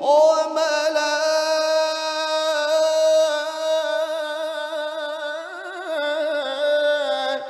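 A male qari reciting the Qur'an in the melodic mujawwad style. He holds one long melismatic note steady for about five seconds, then ornaments it with a wavering, rising run near the end before breaking off.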